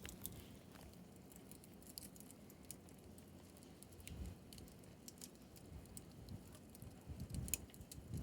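Bonfire crackling faintly, with scattered sharp pops and snaps over a low, uneven rumble.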